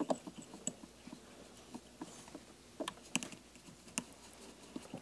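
Faint, irregular small clicks and ticks of hands tying bucktail onto a hook in a fly-tying vise, a few sharper ones about three and four seconds in.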